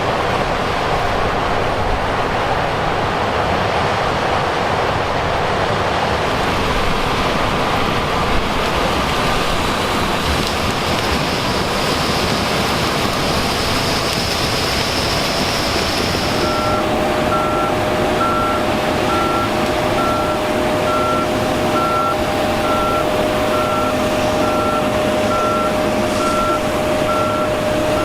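Heavy harvest machinery running steadily. About two-thirds of the way in, a backup alarm starts beeping evenly, about twice a second, over a steady hum.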